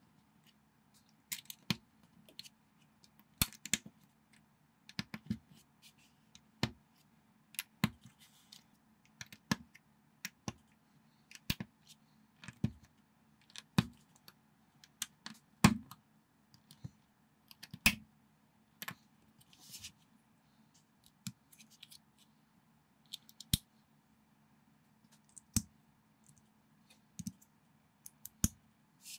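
Plastic LEGO bricks and plates clicking and snapping together as they are pressed onto each other and handled: irregular sharp clicks, roughly one or two a second, some much louder than others.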